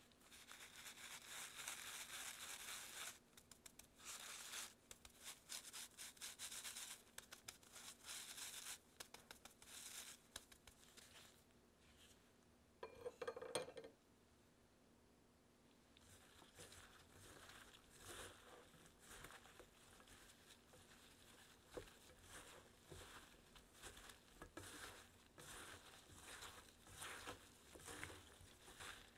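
Fine-mesh stainless steel sieve shaken over a metal bowl as flour is sifted onto sliced apples: a faint, stop-start hissing rustle, with a brief louder clatter about halfway through. Then gloved hands toss the floured apple slices in the bowl, a soft, irregular rustling and patting.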